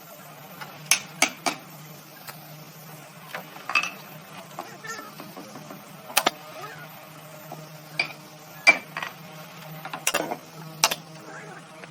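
Irregular sharp knocks and clicks of hand tools and wood being worked, about a dozen scattered through, over a steady low hum.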